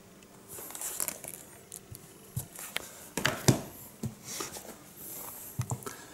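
Hardcover books being handled: covers sliding and rubbing against each other, with scattered taps and knocks, the sharpest about three and a half seconds in.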